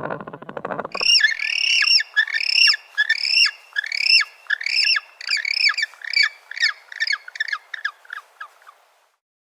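Gentoo penguin chick calling: after a lower buzzy call trails off about a second in, a long run of high, arched peeping calls, each rising and falling, repeating about once a second and then getting shorter, quicker and fainter until they stop.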